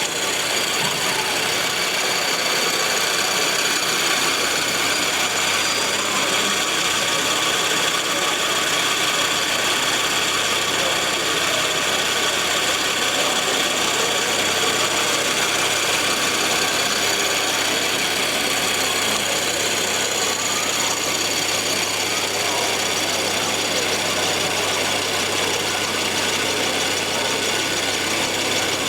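Scale RC trucks running with their sound modules playing a diesel engine idling, a steady engine drone with no breaks.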